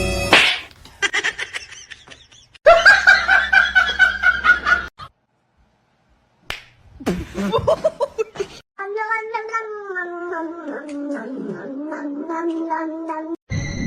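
A cat meowing, with a long wavering drawn-out call near the end, broken up by short cuts with clicks, knocks and a burst of laughter.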